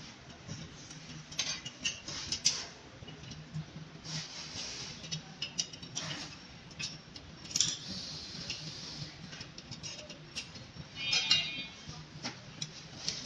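Hands handling metal bike parts and tools: scattered clicks, light metallic clinks and rustling, with a louder rasp about eleven seconds in, over a faint steady low hum.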